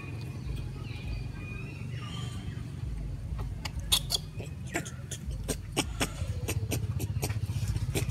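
Faint high squeaks from a newborn macaque, then a run of sharp, irregular clicks beginning about three and a half seconds in, over a steady low hum.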